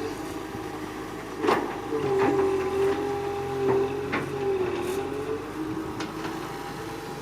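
Excavator running, with a steady whine that shifts slightly in pitch and several sharp knocks, the loudest about a second and a half in.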